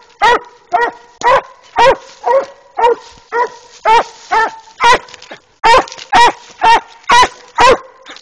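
Walker coonhound barking steadily at a tree, short evenly spaced barks about two a second: a hound's tree bark, the sign that it has game treed during a coon hunt.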